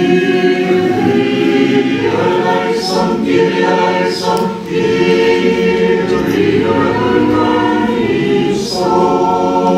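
Mixed polyphonic church choir singing a litany response in several-part harmony, with held chords that move every second or two.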